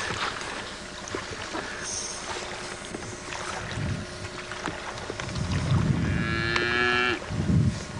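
A cow mooing once: a drawn-out call about six seconds in, lasting about a second.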